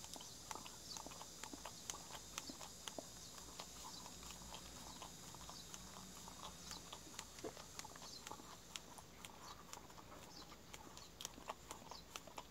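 A Jindo dog licking ice cream out of a cup held to its mouth: faint, wet, irregular licking and smacking clicks, several a second.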